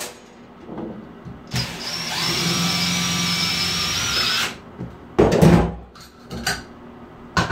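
DeWalt 18V cordless drill/driver running steadily for about three seconds, unscrewing a long screw that holds the shower valve's trim plate. About five seconds in comes a single loud knock.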